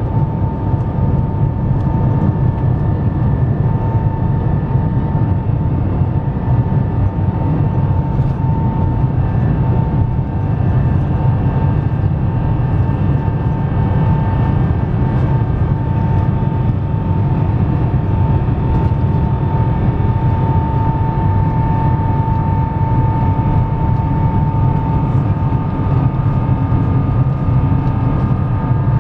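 Rolls-Royce Trent XWB-97 engines of an Airbus A350-1000, heard from inside the cabin as the aircraft rolls along the ground: a steady low rumble with a constant high fan whine that holds its pitch.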